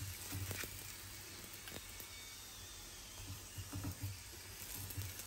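Aloo paratha frying faintly in ghee in a pan, a soft steady sizzle, while a steel spoon spreads the ghee over it with a few light clicks.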